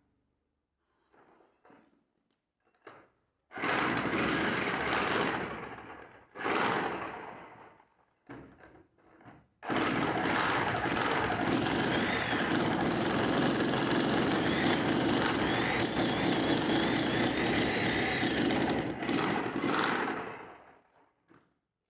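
A motor-driven machine switched on in two short runs, then run steadily for about ten seconds before winding down.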